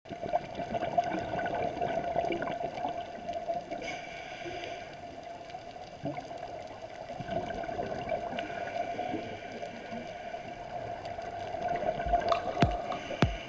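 Muffled underwater ambience picked up by a diving camera: a wash of water noise and bubbling over a steady hum. A few sharp knocks come near the end.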